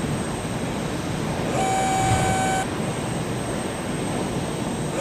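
Jet engine sound effect: a steady rushing roar, joined for about a second in the middle by a steady high whine.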